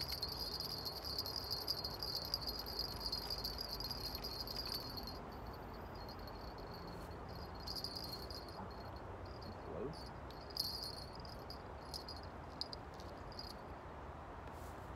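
Insects chirring in a steady high-pitched drone, which breaks off about five seconds in and then comes back in short stretches, over a faint low background rumble.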